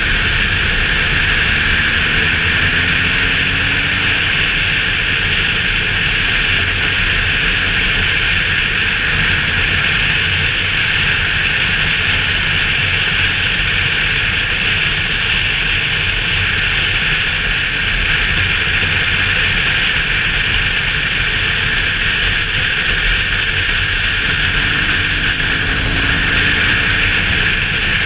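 Steady wind rush over the camera's microphone at road speed on a BMW R 1200 GS motorcycle, with the low drone of its boxer-twin engine and the road underneath.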